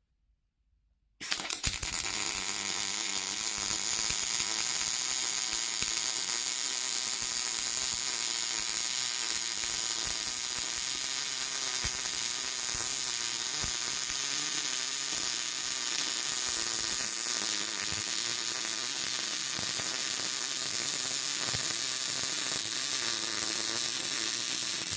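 MIG welding arc from an Andeli welder set to 16.5 volts and 124 amps, laying one continuous bead on steel plate. It is a steady, dense crackle that starts about a second in and holds evenly to the end.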